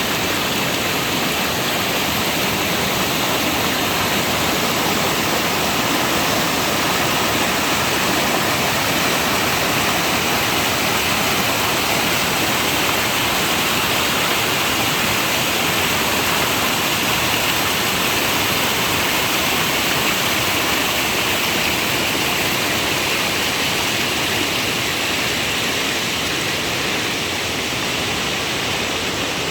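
Steady rain falling in a forest, an even hiss that holds level throughout.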